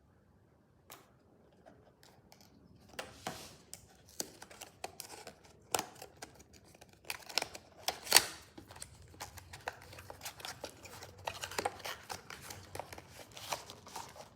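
Packaging being handled and opened by hand: irregular crinkling and crackling with sharp snaps. It starts about three seconds in and is loudest about eight seconds in.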